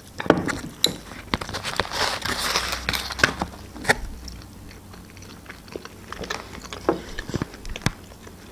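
Close-up sounds of eating pizza: biting and chewing, with sharp mouth clicks and small crunches scattered through and a denser spell of chewing about two seconds in.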